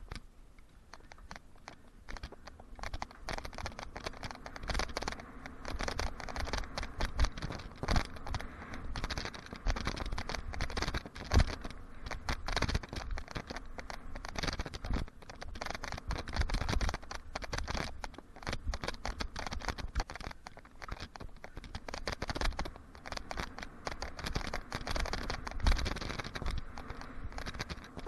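Mountain bike riding over packed dirt, its tyres crunching and scraping on the trail along with constant rattling and irregular low thumps over the bumps and jumps. It starts quietly and picks up about two seconds in as the bike gets going.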